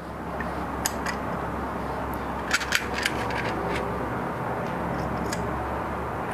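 A few light clicks and taps as the load cell platform is set down onto the Baratza Forte grinder, with a cluster of them about two and a half to three seconds in, over a steady background hiss and hum.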